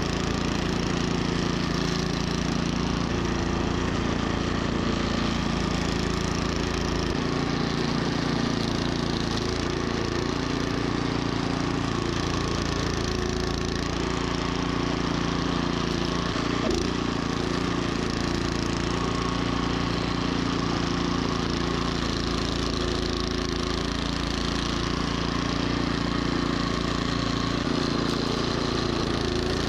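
Troy-Bilt snowblower engine running steadily under load, with the rush of snow being churned and thrown.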